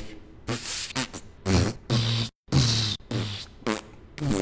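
A person's voice making short, rhythmic vocal sounds, pitched bursts alternating with breathy noises at a fairly even pace.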